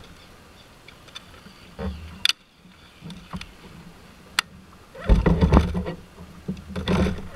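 Clear plastic tackle box of soft-plastic lures being handled: two sharp clicks a couple of seconds apart, then louder rattling and rubbing in two bursts near the end.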